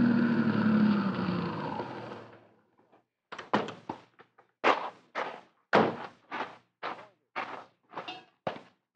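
A short music bridge dies away over the first two seconds or so. Then, after a brief gap, a sound-effect of footsteps begins: steady single steps, about two to three a second, that carry on to the end.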